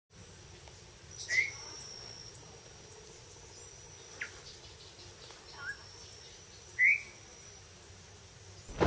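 Birds in a tropical forest giving four short, rising chirps spread across several seconds, over a thin, steady high insect whine that comes and goes. A sudden loud rush of noise cuts in at the very end.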